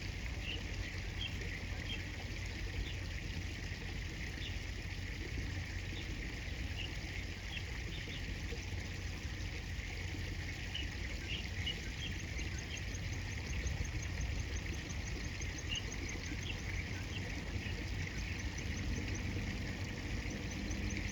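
River water running steadily, with scattered short high chirps of birds and, from about halfway, a fast, high-pitched ticking trill.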